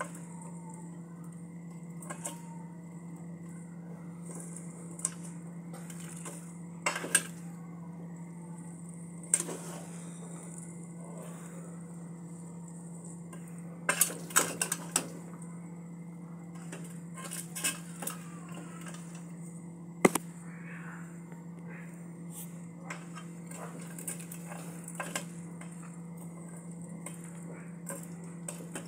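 A metal fork scraping and knocking against a large metal pan while rice noodles and vegetables are tossed, giving scattered sharp clinks, a quick cluster around 14 seconds in and the loudest around 20 seconds in. A steady low hum runs underneath.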